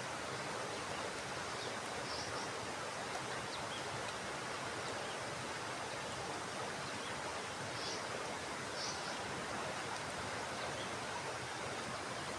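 Rushing water of a fast-flowing mountain river, a steady even rush, with a few faint short high chirps.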